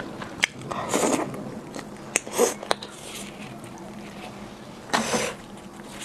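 Close-miked eating of steamed chicken: wet chewing and mouth sounds in short bursts, about a second in, around two and a half seconds in and near five seconds, with a few sharp clicks between them.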